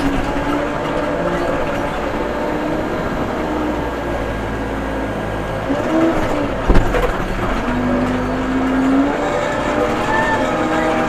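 Case 580 M backhoe's diesel engine running under load, its pitch rising and falling with the throttle, with one sharp clank about seven seconds in.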